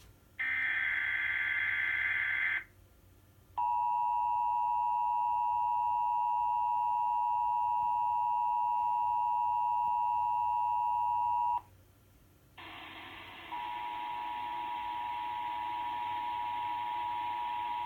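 Emergency Alert System relay: the last burst of the screeching digital SAME header data, then the two-tone EAS attention signal held steady for about eight seconds. It cuts off, and after about a second a steady hiss with a faint single tone comes in.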